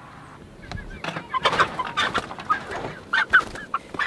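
Cornish cross meat chickens squawking and clucking as they are caught by hand in a chicken tractor: from about a second in, a run of short, loud squawks with scuffling between them.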